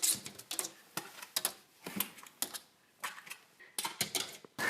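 A dog's claws scratching and clicking at a door in quick irregular flurries: an eager dog wanting to be let in at feeding time.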